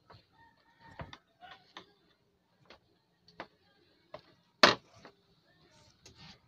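Plastic clicks and knocks of an LED TV's back casing being handled and shifted, with one loud sharp knock about two-thirds of the way through.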